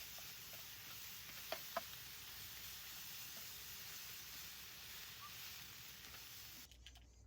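A faint, steady hiss with two short clicks about a second and a half in; the hiss cuts off near the end.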